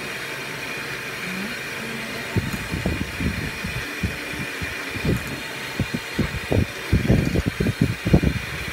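Electric hand mixer running with a steady motor hum and whine as its beaters churn a thick, creamy ice cream mixture in a ceramic bowl. Irregular low thuds join in from about two and a half seconds in and grow more frequent near the end.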